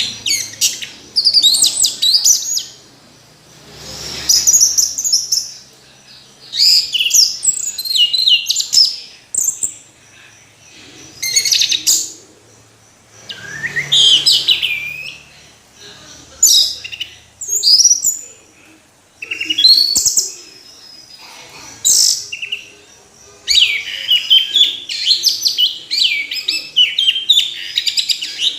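Orange-headed thrush singing: rapid, varied phrases of high whistles and chirps, each a second or two long, separated by short pauses, with a longer unbroken run of song near the end.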